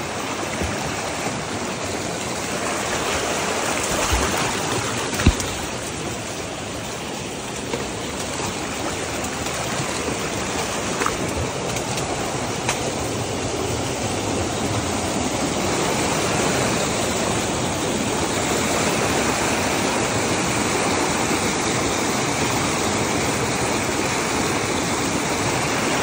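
Small rocky creek rushing and splashing over stones in little cascades, a steady rushing noise that grows a little louder toward the end. A single brief knock about five seconds in.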